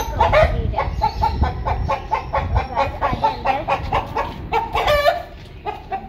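Domestic chickens clucking: a quick run of short repeated clucks, with a longer wavering call about five seconds in.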